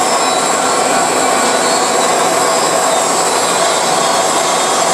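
Bandsaw blade cutting through a thick forged aluminum part, trimming off the forging flash. It makes a loud, steady whine over a hiss that holds an even pace throughout.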